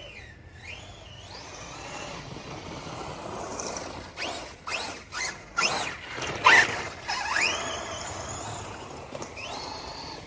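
Electric RC buggy's brushless motor whining, its pitch rising and falling as it speeds up and slows down. A run of short, sharp bursts comes in the middle, the loudest a little past halfway.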